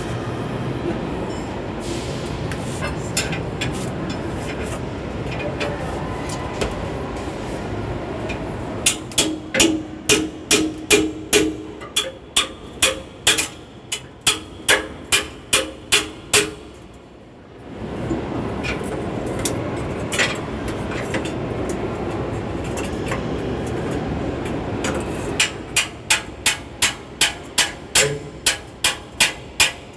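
Two runs of sharp, evenly spaced knocks, about two a second, from hand-tool work on the vehicle's underside during gearbox removal. One run starts about nine seconds in, the other near the end. A steady low rumble fills the gaps.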